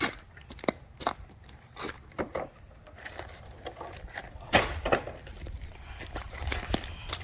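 Scattered knocks, scuffs and footsteps from someone moving about and handling parts, with two louder knocks about four and a half seconds in.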